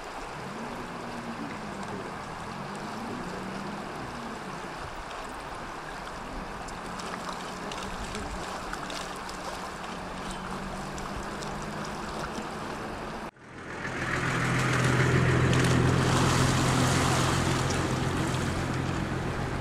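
A steady low engine hum over an even rushing noise. About thirteen seconds in, the sound cuts out for an instant and comes back louder, with the hum stronger.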